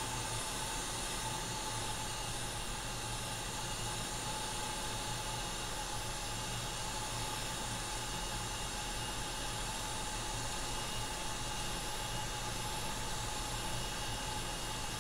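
Hot air rework station blowing steadily over an A14 CPU to melt its solder so the chip can be lifted off: an even hiss with a thin steady whine.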